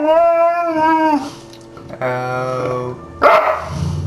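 Boxer dog howling a long, slightly wavering note that breaks off about a second in. Lower steady held notes follow, with a short harsh burst of sound a little past three seconds in.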